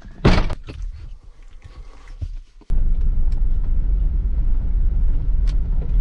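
A pickup's door slams shut just after the start, with a few small knocks after it. About two and a half seconds in, the sound cuts to the pickup driving along a dirt field track, a steady low rumble of engine and tyres heard from inside the cab.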